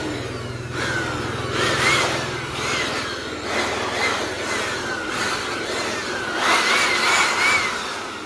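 Electric power tool running under changing load: its whine dips in pitch and quickly picks back up about once a second, over a rough grinding noise.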